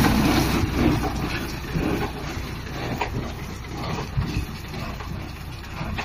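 Tractor engine running under load as it pulls a round hay baler through the field, with the baler's pickup and chamber adding an irregular knocking clatter.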